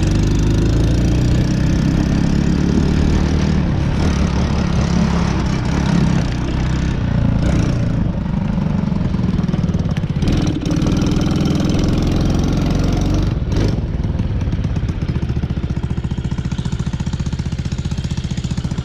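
Small single-cylinder four-stroke engine of a TaoTao Boulder 125cc ATV running, its note varying for the first two-thirds as it is ridden. It settles to a steady idle for the last few seconds.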